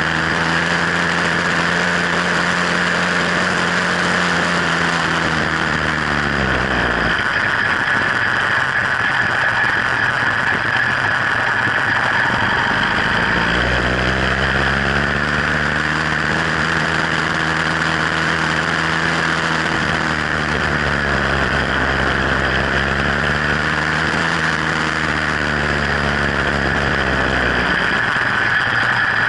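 66cc two-stroke motorized-bicycle engine running while riding. Its note falls away about six seconds in, comes back up around fourteen seconds, and falls again near the end, over a steady rushing noise.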